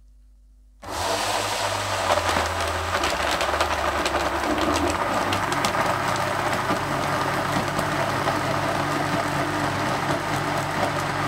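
Electric blender motor switched on about a second in, whirring steadily as its blades chop strawberries, almonds and sugar into milk for a milkshake, then switched off at the end.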